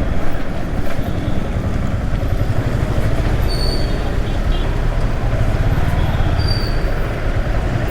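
Riding noise from a Yamaha R15 V3 motorcycle heard at a helmet-mounted action camera: a steady, loud wind rush with heavy low buffeting over the engine and road noise.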